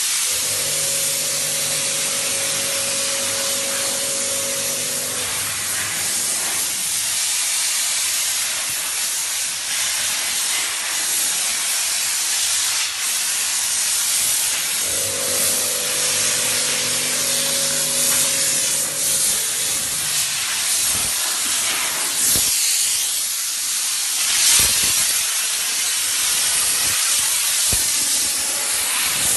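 Electric steam cleaner's wand jetting steam onto a car body: a loud, steady hiss. A low hum joins in twice for about five seconds, near the start and about halfway through.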